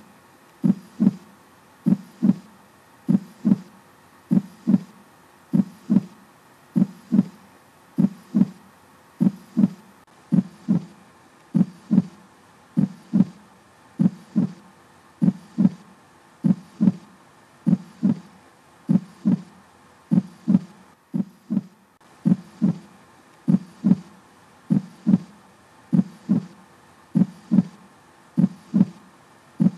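Heartbeat sound: a steady double thump, lub-dub, repeating a little slower than once a second over a faint hum.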